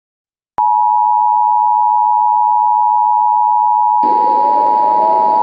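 Emergency Alert System two-tone attention signal: two steady pure tones (853 and 960 Hz) sounding together, loud, starting abruptly about half a second in. About four seconds in, a rushing hiss with a faint rising tone joins beneath it.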